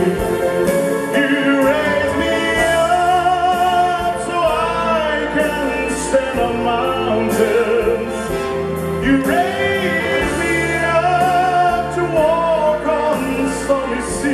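Music: a singer holding long notes with a wide vibrato over sustained instrumental accompaniment.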